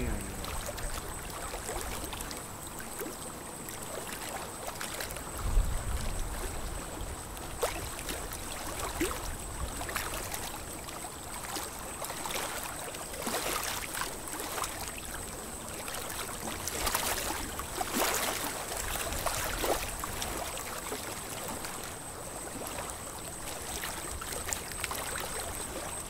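Lake water splashing and trickling around a small wooden boat as it is poled through shallow water, with scattered irregular drips and knocks and a thin, steady high tone.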